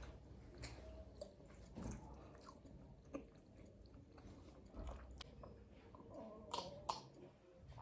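Faint chewing of tandoori chicken, with scattered soft mouth clicks.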